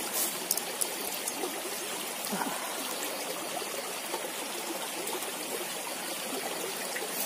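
Shallow stream flowing over rocks: a steady rush of running water, with a few faint clicks in the first second.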